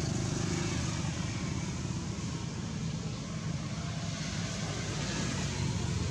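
Steady low rumble with an even hiss above it, unchanging throughout: outdoor background noise.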